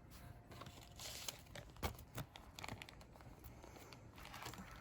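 Faint handling of small GM lock-cylinder parts: scattered light clicks of lock wafers being picked and sorted, with a soft rustle about a second in and again near the end.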